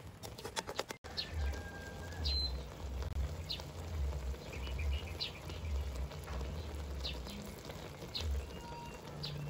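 A metal spatula scrapes and clicks in an aluminium wok for about a second. After that, birds chirp in short calls now and then, over a low rumble that comes and goes.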